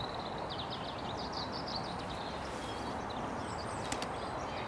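Steady rush of flowing river water, with small birds chirping and singing high above it. One brief click about four seconds in.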